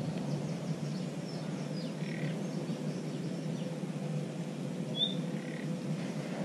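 Woodland ambience: birds chirping now and then over a steady low background noise.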